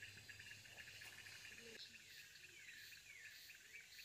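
Faint insect trill, a fast even pulsing, that fades out about halfway through, followed by a few short high calls sliding downward.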